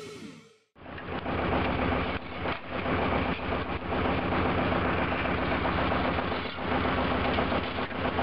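Engine of road-repair machinery running steadily, a low hum with a constant noisy rush over it, starting about a second in after a brief silence.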